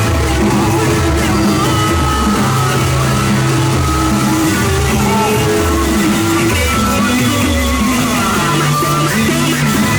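Loud music with a heavy, moving bass line and guitar, played through a car sound system.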